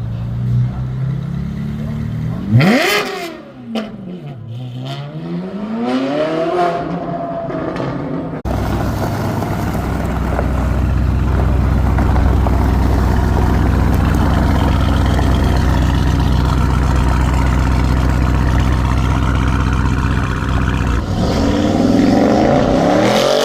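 High-performance V8 car engines revving loudly: sharp blips that climb and fall in the first several seconds, then a steady low running note that rises into more revs near the end.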